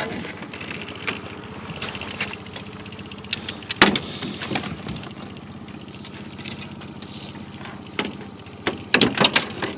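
Outboard motor running steadily while the landing net holding a walleye knocks and clatters against the aluminum boat as it is lifted in and set down on the seat. The loudest knock comes about four seconds in, with a quick cluster of knocks near the end.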